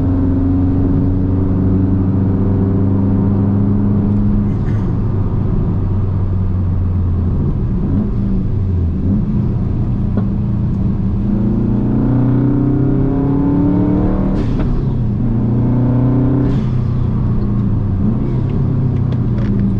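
Car engine and exhaust under hard driving on a race circuit: revs held steady, dropping about eight seconds in, then climbing again, broken by two quick gear changes in the second half.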